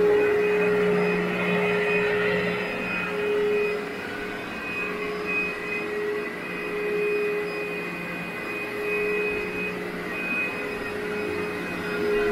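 Vacuum cleaner running steadily on carpet, dry pre-vacuuming before the wet cleaning. Its motor gives a steady whine over a rushing of air, and the loudness swells and dips every few seconds as it is pushed back and forth.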